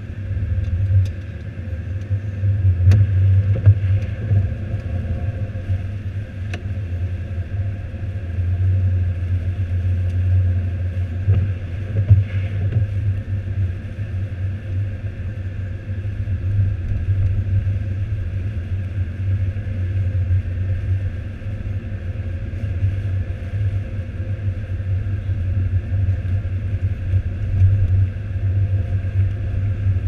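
Car driving slowly through snow, heard from inside the cabin: a steady low engine and road rumble, with a few light knocks.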